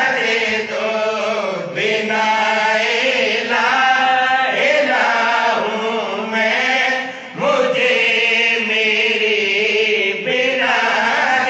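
A man's voice chanting a devotional Urdu/Punjabi recitation through a microphone and PA, in long melodic phrases with held, wavering notes; a brief pause about seven seconds in, then a rising note.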